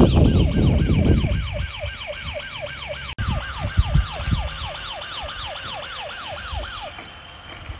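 Electronic toy siren, most likely the toy police helicopter's, giving a falling wail about four times a second. It stops about a second before the end, leaving a short steady beep. Knocks and handling noise come in the first second.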